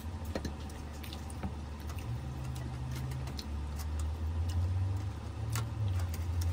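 Scattered light clicks and taps of cutlery and dishes at a dinner table while food is eaten, over a low steady hum.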